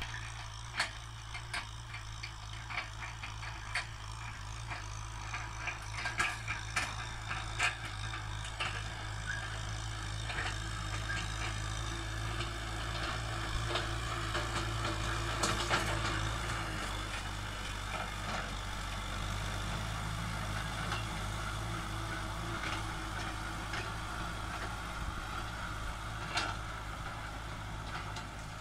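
Farm tractor's diesel engine running steadily under load as it pulls a tillage implement through dry, cloddy soil. Irregular sharp clicks and knocks sound over it, thickest in the first half.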